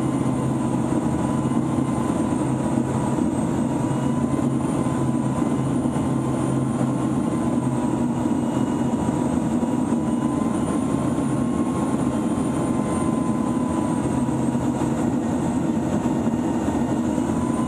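Steady drone of a Pilatus PC-9M's turboprop engine and propeller mixed with rushing airflow, heard from a camera mounted on the aircraft in close formation flight. A thin high tone wavers slightly, and a low hum drops away about seven seconds in.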